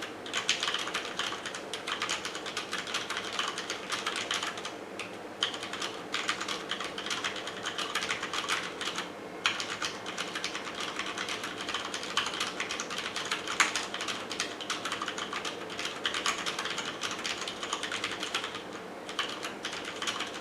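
Fast continuous typing on a Cherry MX Board 6.0 mechanical keyboard with Cherry MX Red linear switches: a dense clatter of keystrokes, broken by two brief pauses.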